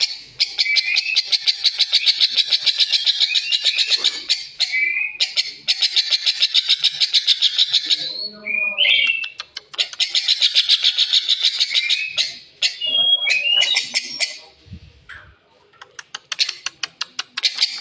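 Rosy starling giving a strange, harsh, grating call: long bouts of rapid rattling pulses, each lasting a few seconds, with short whistled notes slipped in between the bouts.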